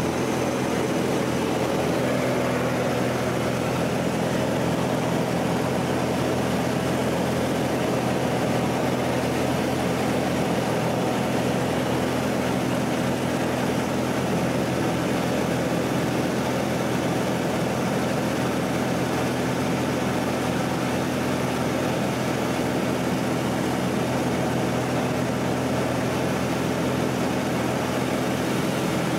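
Pitts biplane's piston engine and propeller running steadily in cruise, heard from inside the cockpit as a constant even drone with a wide rushing hiss over it.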